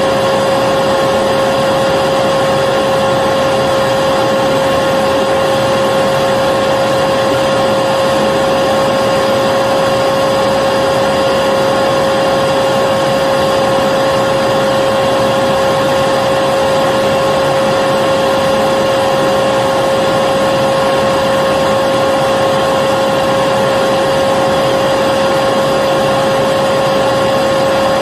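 Vacuum cleaner running steadily: an even rushing hiss with a constant motor whine.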